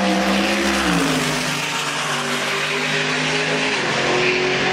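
Drag-racing car engine accelerating hard down the strip, its pitch holding high and dropping twice at upshifts.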